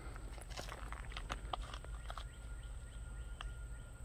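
Quiet rural trackside ambience: a steady low rumble, a thin steady high-pitched tone, and a scattering of small clicks and ticks in the first couple of seconds. A faint thin tone comes in about halfway through.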